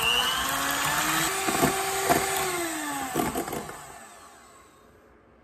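Electric hand mixer running at speed, its beaters whipping egg whites toward stiff peaks in a glass bowl, with a few knocks of the beaters against the bowl. The motor sound dies away about four seconds in.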